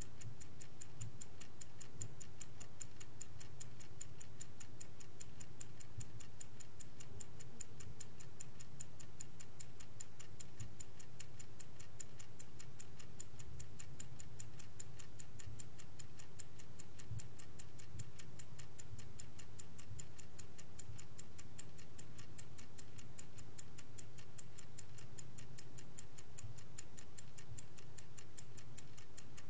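Vintage Swiss-made Angelus mechanical clock ticking in a fast, even rhythm, each tick a sharp, bright click.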